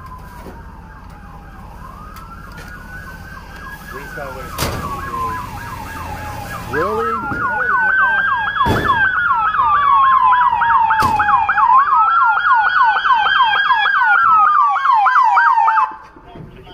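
Police car siren sounding a slow rising-and-falling wail with a fast yelp of about five sweeps a second over it. It gets much louder as the patrol car arrives on a lights-and-siren code 3 response, then cuts off suddenly near the end.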